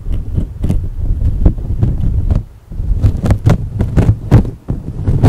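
Low rumbling wind buffeting an unattended sound recorder's microphone, with a run of sharp, irregular taps and clicks that come closer together about halfway through; the whole is heavily amplified.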